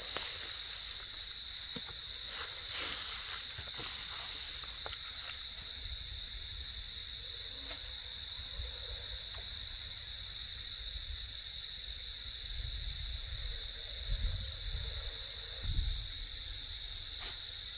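Steady high-pitched insect chorus, one even trill that runs unbroken. A few faint clicks come in the first few seconds, and low rumbles come and go a few seconds before the end.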